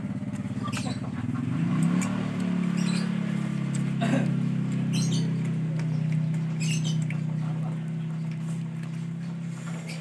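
Refrigeration vacuum pump running steadily while it evacuates a refrigerator's sealed system before the refrigerant charge. About two seconds in its hum shifts and settles lower and steadier, and it stops at the very end.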